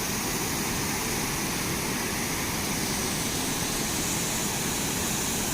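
A river in flood pouring through and over a dam: a steady, even rushing of water that does not change.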